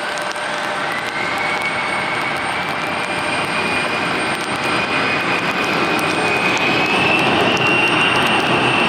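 Bombardier CRJ-700 regional jet's two rear-mounted turbofans spooling up for takeoff: a jet rush with a whine that climbs steadily in pitch, growing gradually louder.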